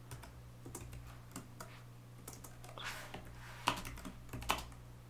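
Typing on a computer keyboard: scattered light key clicks, with a few sharper keystrokes in the second half, over a steady low electrical hum.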